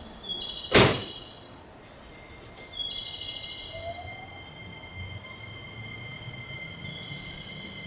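Electric train at a station platform: a sharp, loud knock about a second in, then a faint rising whine and a low rumble as a train moves, under steady high-pitched tones.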